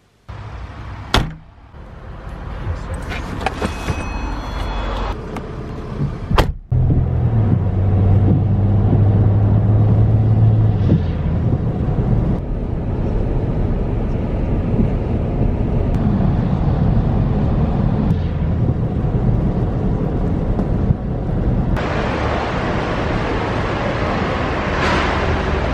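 Steady low rumble of a car's engine and tyres heard from inside the car while driving, starting after a sharp cut about six seconds in. Before it come brief indoor handling sounds with a sharp click. About twenty-two seconds in it gives way to outdoor traffic noise.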